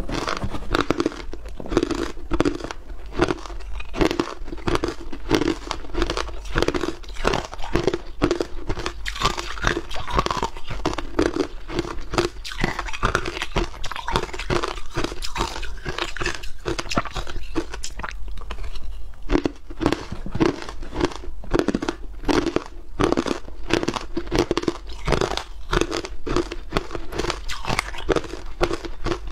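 Hard ice being bitten and chewed close to a clip-on microphone: continuous crunching with many sharp cracks a second.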